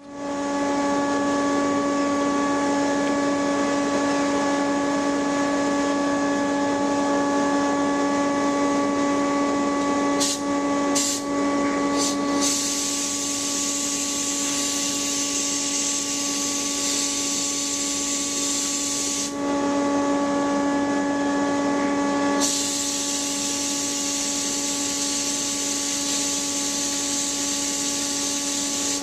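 Sandblast cabinet at work: a steady motor hum runs under the blast gun's hiss as it sprays abrasive at a small metal part. The blasting comes in a few short bursts about ten seconds in, then long blasts with a pause of about three seconds in the middle.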